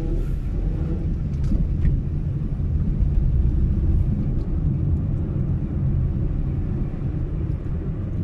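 Steady low rumble of a car's engine and tyres heard from inside the cabin while driving on the road.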